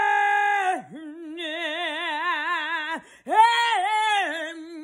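A woman singing a cappella with no clear words: a long held note, then long notes with a wide, even vibrato, with a short breath about three seconds in.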